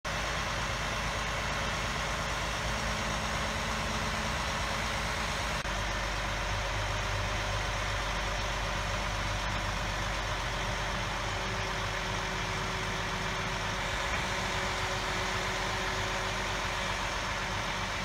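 Truck-mounted crane's engine running steadily.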